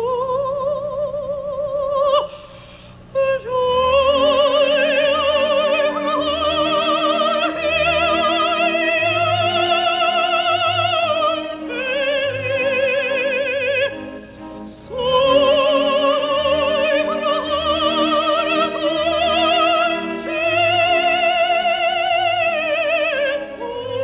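A soprano sings an operatic aria in long, sustained phrases with a wide, even vibrato, pausing briefly for breath between phrases. An orchestra accompanies her softly with a steady, pulsing bass line.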